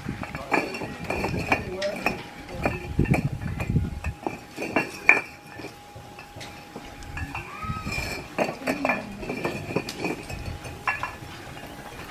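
Clay face bricks knocking and clinking against each other, irregularly and many times, as they are handed down and stacked by hand, with voices in the background.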